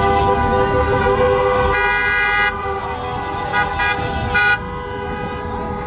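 Car horns honking together in celebration: several horns held at once. About two seconds in, one brighter horn gives a long blast, and a few short toots follow around four seconds in, over the low rumble of slow traffic.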